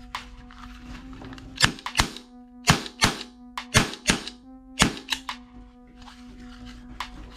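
Sharp plastic clicks from a black toy revolver's hammer and trigger being worked, coming in quick pairs about once a second, over steady droning background music.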